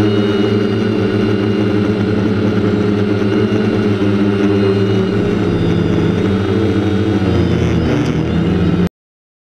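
DJI F550 hexacopter's six electric motors and propellers giving a steady, loud hum, heard from the GoPro mounted on the craft in flight; the pitch shifts a little near the end before the sound cuts off abruptly.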